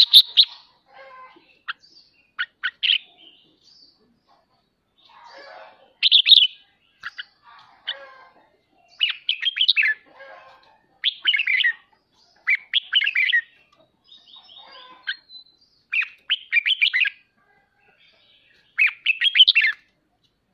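Red-whiskered bulbul singing in short, rapid chattering phrases, one about every second or two. This is the excited 'ché' chatter that keepers provoke in a bird roused to sing against a rival.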